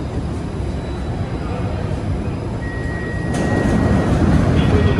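Bombardier metro train running through the station: a steady rumble, joined a little past halfway by a thin steady whine, with the rumble growing louder soon after.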